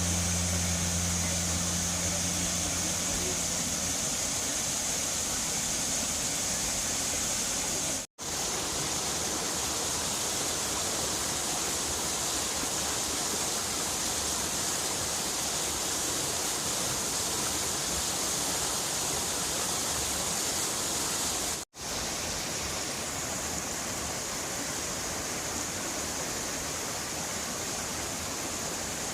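Steady rush of white water from a mountain river cataract, an even hiss with two brief breaks about 8 and 22 seconds in. A low steady hum sits under the water for the first few seconds.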